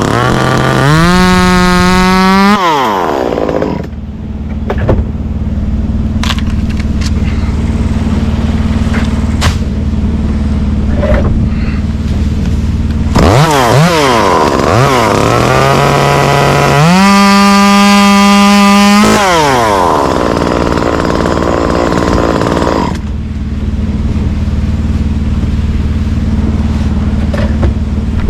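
Two-stroke chainsaw revved up to full throttle twice, each time held for a couple of seconds and then dropped back to a steady idle. A few sharp clicks come in between the two revs.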